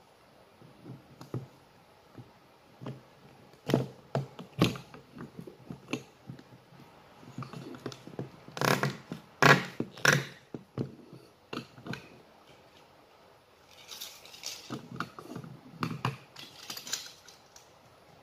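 Irregular knocks, clicks and scrapes of PVC pipe pieces and fittings being handled and measured, with a few louder knocks near the middle and a stretch of scraping near the end.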